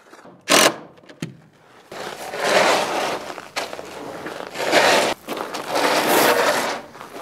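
A wooden 2x6 screed board dragged across loose dry concrete mix, scraping in several long strokes as the base is levelled. A short, sharp loud noise comes about half a second in.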